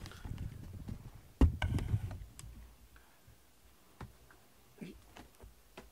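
Handling noise right at the microphone: rubbing and rustling with a sharp click about a second and a half in and a few smaller clicks, then scattered faint ticks.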